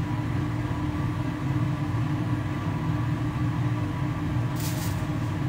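Steady low mechanical hum with a faint held tone, running unchanged; a short hiss near the end.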